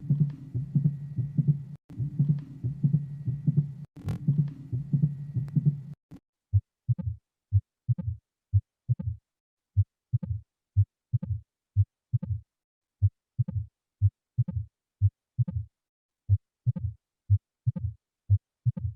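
Recorded heart sounds from an auscultation training track: low thuds coming in lub-dub pairs. For about the first six seconds a continuous low sound fills the gaps between the beats; after that the paired beats stand clean with silence between them.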